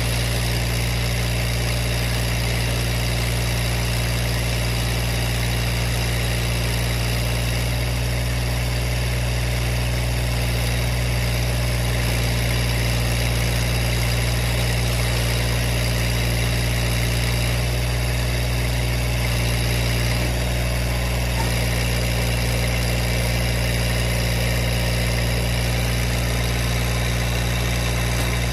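Massey Ferguson GC1723E sub-compact tractor's three-cylinder diesel engine running steadily at an even throttle while its backhoe is worked.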